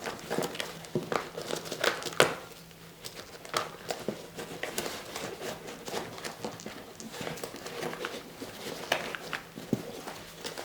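Crinkling and rustling as a first-aid kit pouch and its wrapping are handled, with irregular small clicks throughout and a sharper click about two seconds in.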